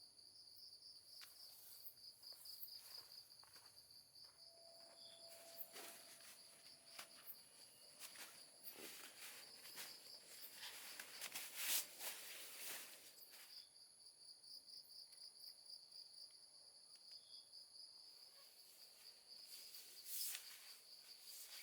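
Insects chirring in a steady, pulsing high trill, faint throughout. Scattered soft rustles and clicks come over it, thickest in the middle, with one sharper click about twelve seconds in.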